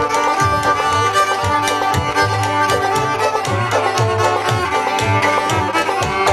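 Background music: the instrumental break of an old-time string-band song, a fiddle leading over a steady bass beat.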